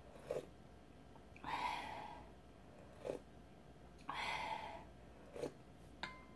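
Slurping ramyeon broth from a wooden spoon: two drawn-in slurps about two and a half seconds apart, with a few short mouth smacks between.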